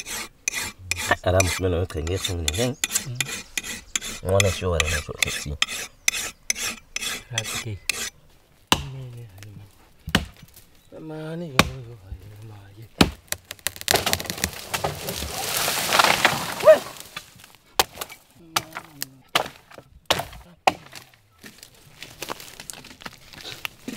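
Pit saw cutting timber by hand: a fast, even run of rasping strokes for about the first eight seconds, then scattered knocks and a longer rasp about two-thirds of the way through.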